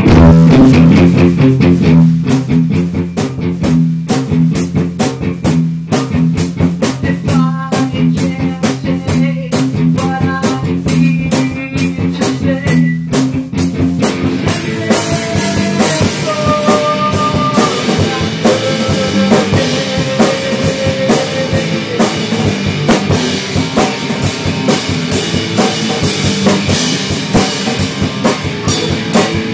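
Instrumental rock band music: a drum kit keeps a steady beat under guitar and low sustained notes. About halfway through, the low part gives way to higher melodic guitar notes over the drums.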